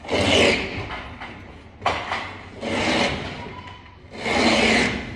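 Utility knife blade scraping and cutting along the edge of a gypsum board overhead: three rasping strokes, each under a second long, with a sharp click just before the second stroke.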